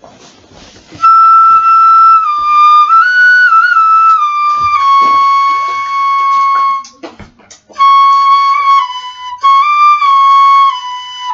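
Bamboo transverse flute playing a slow melody of long held high notes that step and slide between pitches. A breathy start gives way to the first note about a second in, and there is a short break for breath about two-thirds of the way through before the melody resumes.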